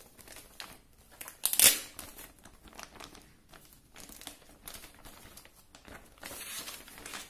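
Thin clear plastic laptop bag crinkling and rustling as the laptop is handled and slid out of it, in irregular crackles. A loud sharp crackle comes about one and a half seconds in, and a longer, denser rustle near the end.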